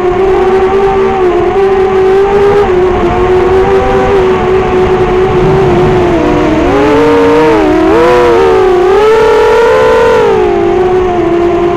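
FPV racing quadcopter's four Racerstar BR2205 brushless motors and 5-inch Dalprop props whining close to the microphone: a steady pitch that swings up and down several times from about six to ten seconds in as the throttle changes. Rough wind rumble on the microphone underneath.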